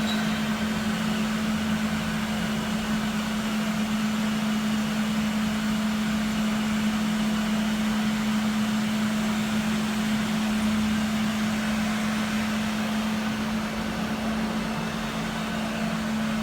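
Cleanvac B4501 battery-powered floor scrubber running, a steady motor hum with one constant tone over a whooshing noise.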